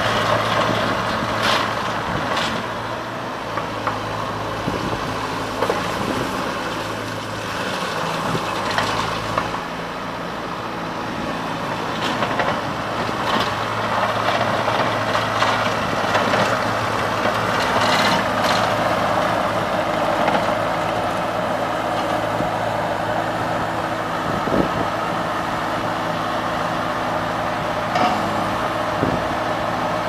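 Bobcat T190 compact track loader's diesel engine running steadily as the machine travels on its rubber tracks and works its loader arms. Scattered clanks come from the machine throughout.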